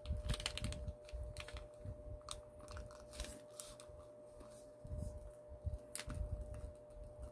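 A square sheet of origami paper being folded and creased by hand: scattered soft crinkles, taps and rustles, over a faint steady hum.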